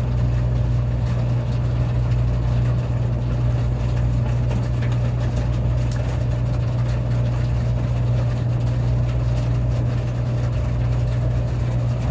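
Inside a Taiwan High Speed Rail 700T train cabin: a steady low hum from the train, with heavy rain spattering on the carriage window.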